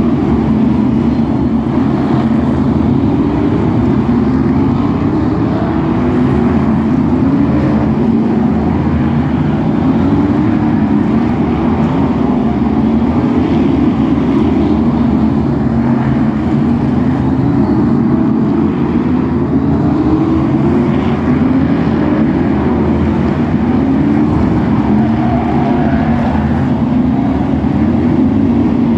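A pack of F1 stock cars racing, their big V8 engines running loud and continuous, the pitch rising again and again as cars accelerate out of the bends.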